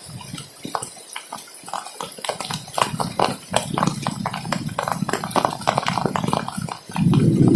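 Irregular sharp knocks and clicks. About seven seconds in, a louder, steady rushing noise starts suddenly.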